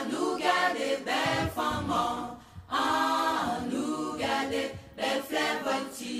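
Live singing with little or no instrumental backing, in sung phrases with short breaks between them.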